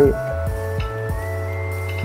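Background music: sustained chords over a steady, even beat.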